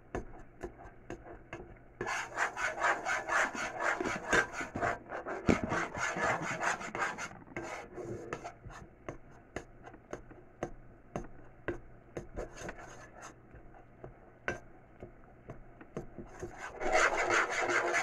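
A spoon scraping and stirring a thick cornstarch paste in a pot, a quick run of rasping strokes that is louder for several seconds, eases off, and picks up again near the end.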